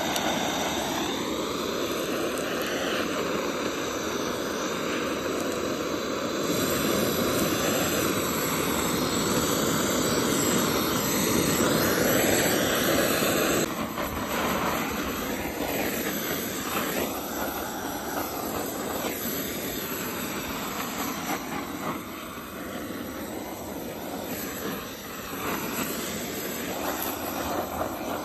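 Handheld butane blowtorch on a gas canister, its flame hissing steadily while singeing the hair off a cow's head. The sound changes abruptly about halfway through.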